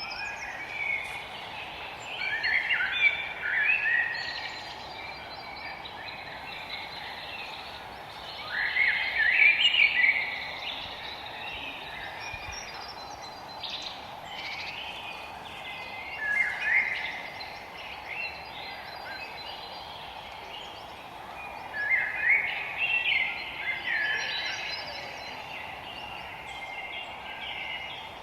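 Songbirds singing in a forest: several short warbled song phrases, loudest about 3, 9, 16 and 23 seconds in, over a steady background hiss.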